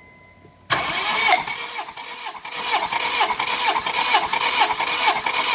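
Starter motor cranking a 2009 Honda Civic's 1.8-litre 16-valve four-cylinder engine with its spark plugs out, for a compression test on cylinder one, which reads 16 bar. The cranking starts suddenly under a second in and keeps an even rhythm of about three pulses a second.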